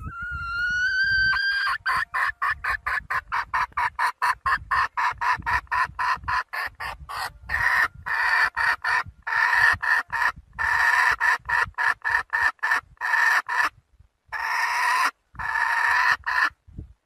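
Red junglefowl hen calling for a rooster: one drawn-out rising note, then a long run of quick cackling notes at about five a second, which turn into longer notes with gaps after about seven seconds.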